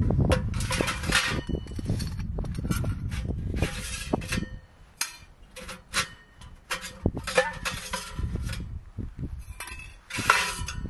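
Metal clinking and scraping as nested stove pipe sections are pulled out of a portable Gstove wood stove's firebox and set down, with sharp clicks between short scraping rushes.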